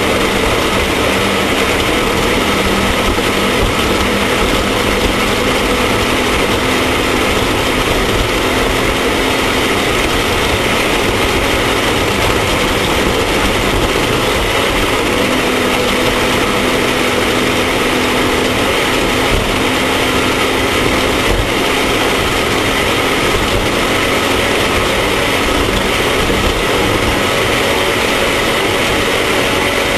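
Off-road race vehicle's engine running steadily at speed, with a constant rushing noise over it.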